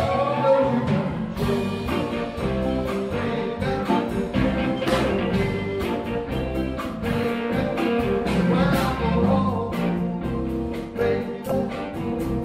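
Live band music: a full band playing an upbeat song, with drum hits keeping a steady beat over bass and guitar.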